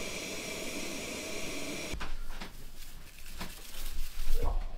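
Canister gas stove burner hissing steadily, then cutting off abruptly about two seconds in as it is shut down. After it, small clicks, knocks and rustles of hot chocolate powder being tipped from a sachet into a wooden cup.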